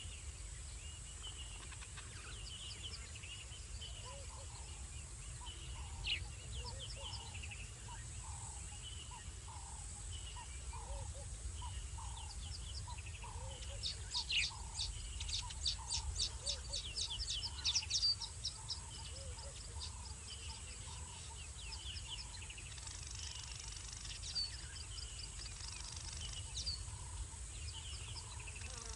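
Night-time wildlife calls: small animals chirping over and over against a steady low rumble, with a quick run of rapid high chirps about halfway through.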